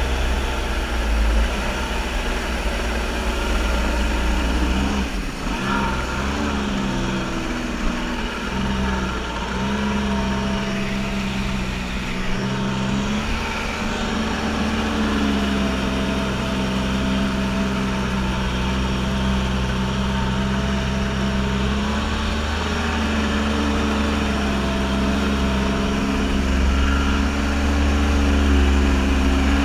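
Kawasaki JS550 stand-up jet ski's two-stroke twin engine running steadily under way, over the hiss of water spray from the hull. The engine note dips briefly a few times, then settles back.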